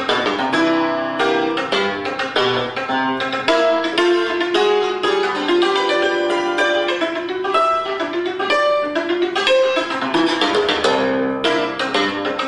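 Cimbalom (Romanian țambal) played solo with two hammers: fast runs of struck notes on the metal strings, the notes ringing on over one another.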